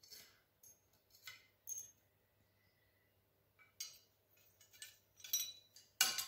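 Light metallic clinks and taps as a forged steel bottle opener and a pair of blacksmith's tongs are set down on an anvil face. There are several separate knocks, some with a brief high ring, and the loudest comes near the end as the tongs are laid down.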